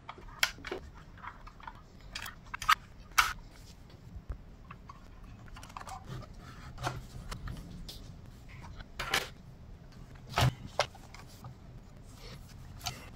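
Irregular clicks, taps and a few sharper knocks as small computer parts and a screwdriver are handled and fitted into an open Mac Mini's aluminium case.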